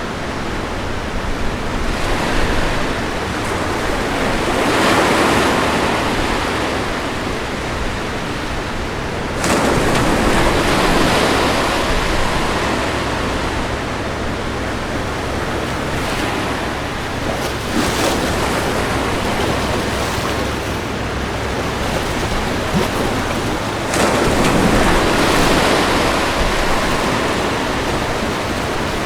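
Ocean waves breaking on a beach: a steady wash of surf with louder swells as waves crash about every five to eight seconds, some coming in suddenly.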